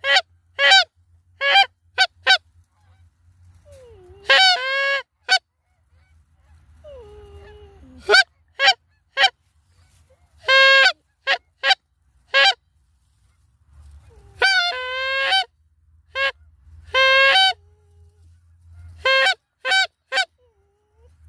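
Canada geese honking and clucking: a run of short, sharp, loud calls, with a few longer drawn-out honks that break in pitch.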